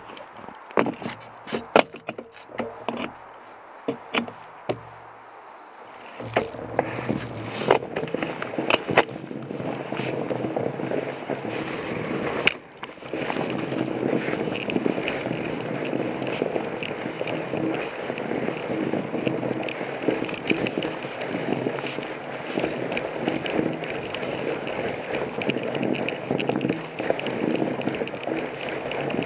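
Studded 45NRTH Dillinger 5 fat-bike tire rolling over a packed snow trail, picked up through the bike's frame: sharp knocks and clicks over bumps. The rolling noise becomes louder and steadier from about six seconds in.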